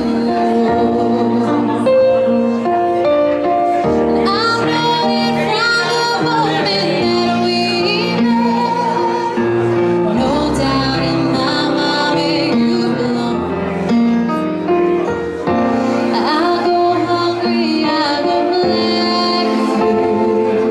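Loud pop music with a female vocal over a band or backing track.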